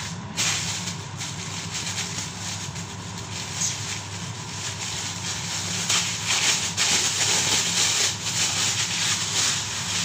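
Thin plastic bag crinkling and rustling irregularly as hands handle black chicken inside it, over a steady low hum.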